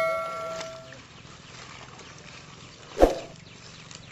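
The ringing tail of a bell-chime sound effect, the kind played with a subscribe-button animation, fading out over the first second. About three seconds in comes one short, loud sound.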